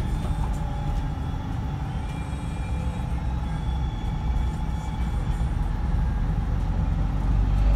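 Scania K124 coach's 12-litre straight-six diesel engine running, heard from inside the passenger cabin as a steady low rumble that swells slightly near the end.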